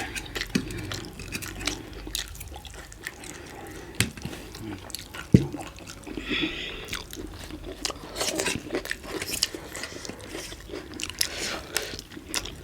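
Close-miked eating of spicy chicken momos (Nepali dumplings in chilli sauce): wet chewing with mouth smacks and clicks. A single sharp click about five seconds in is the loudest sound.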